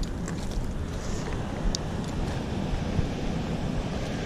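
Steady rushing noise of wind buffeting the microphone together with flowing river water, with a few faint clicks of footsteps on loose stones.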